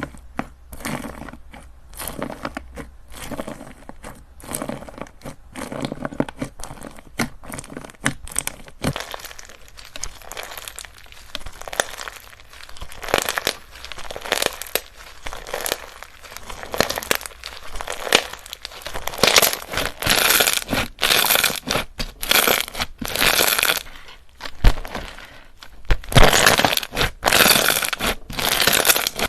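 Slime being squeezed and pressed by hand, making irregular runs of small pops and clicks in short bursts, which grow louder and denser about two-thirds of the way through.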